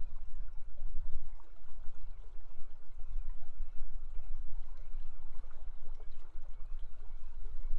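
Steady rush of river water, with a deep low rumble under it.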